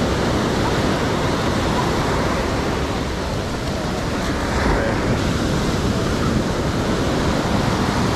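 Ocean surf: waves breaking and washing up the beach in a steady, continuous wash of noise.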